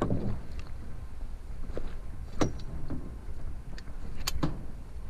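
Steady low wind rumble on the microphone, broken by sharp knocks and clicks from handling the fly rod and landing net: one at the start, one about two and a half seconds in, and the loudest just after four seconds.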